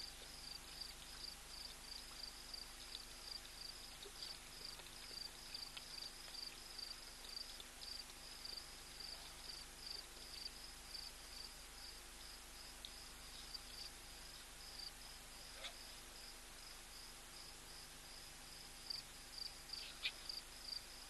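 Crickets chirping in a faint night chorus, a steady high-pitched pulsing of about three chirps a second, over a faint steady low hum.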